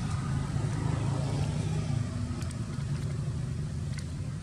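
Steady low hum of a running motor, with two faint clicks partway through.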